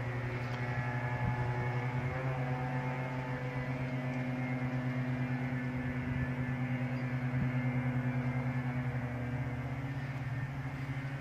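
Loud humming of unidentified running machinery: a steady low drone with many overtones and a slight fast throb.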